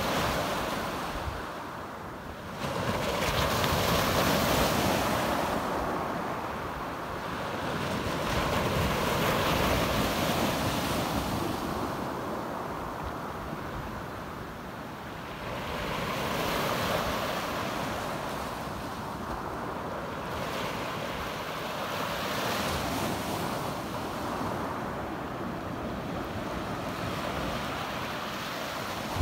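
Small waves breaking and washing up a pebble beach, the surf noise swelling and fading about every six seconds.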